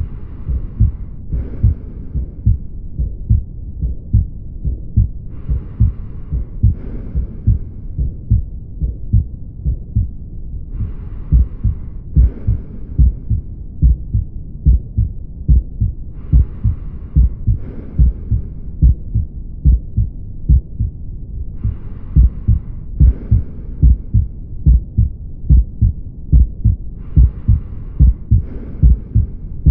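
Heart sounds of a patient with aortic stenosis heard through a stethoscope: a steady, regular rhythm of low heartbeats with the systolic ejection murmur typical of a narrowed aortic valve between them.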